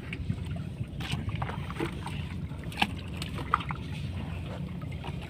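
A fishing boat's motor runs with a steady low hum, with scattered short knocks and clicks as a gill net is hauled aboard by hand.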